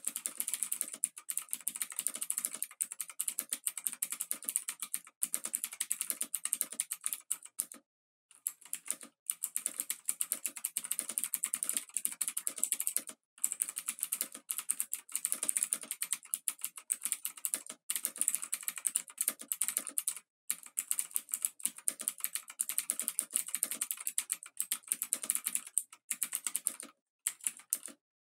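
Dense, rapid crackling clicks, like very fast typing, that cut off abruptly into short silences several times.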